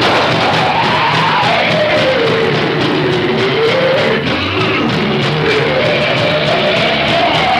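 Loud, harsh distorted noise with a wailing tone that slides slowly down and then back up, in place of the suspect's name in a fake emergency alert broadcast.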